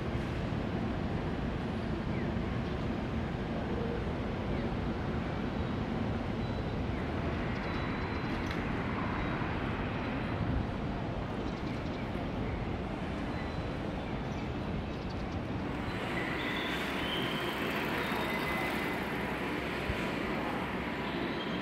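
City street ambience: a steady low rumble of traffic and general town noise. About sixteen seconds in the rumble thins to the quieter hum of a covered shopping arcade, with a few faint high steady tones.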